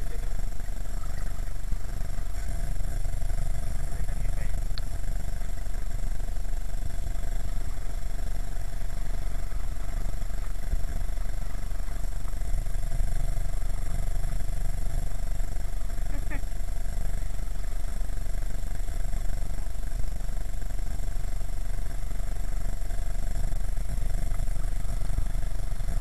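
Strong storm wind buffeting the microphone: a steady low rumble that does not let up, with a faint steady high tone underneath.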